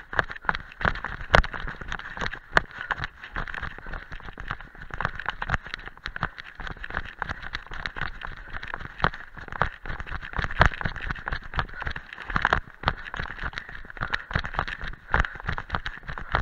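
A trail runner's fast footfalls on a rocky dirt path covered in dry leaves, running downhill, a quick irregular patter of sharp foot strikes over a steady rustle from the chest-harness camera rubbing and shaking.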